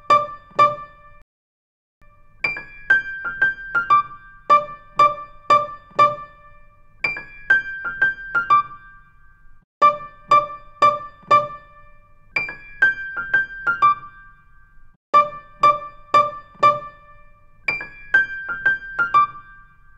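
Intro music: a bright keyboard tune of quick, sharply struck notes, repeating the same short phrase about every two and a half seconds, with a brief pause about a second in.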